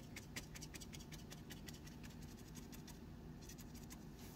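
Paintbrush dabbing and scratching on paper as small grass marks are painted: faint, rapid, irregular little taps, with a short pause about three seconds in.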